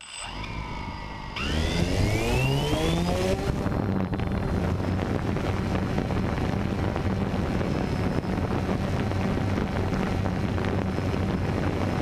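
Small camera drone's motors spinning up: a whine rises in pitch over about two seconds, then settles into a steady running drone.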